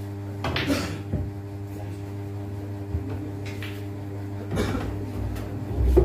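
Pool cue striking the cue ball about half a second in, followed by hard clicks of the balls colliding and knocking against the cushions, with a few more clacks later and a loud low thump at the very end. A steady electrical hum runs underneath.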